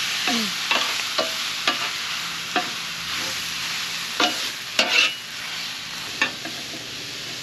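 Food sizzling steadily on a Blackstone flat-top griddle, with a metal spatula clacking and scraping against the steel top at irregular moments, a few sharper clacks about four to five seconds in.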